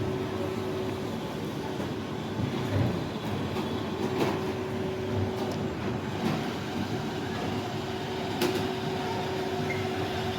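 Coffee machine running steadily while a cappuccino is made, with occasional clinks and knocks. A second, higher hum joins about six seconds in.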